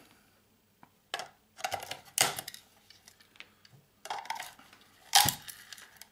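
Metal snips clacking and snapping as they grip and pry small metal parts out of a Bakelite housing: a series of sharp clicks and knocks in irregular groups, the loudest just after five seconds in.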